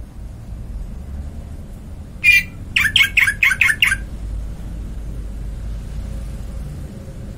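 A bird calling: one short call about two seconds in, then a quick run of about six chirps, each sliding down in pitch.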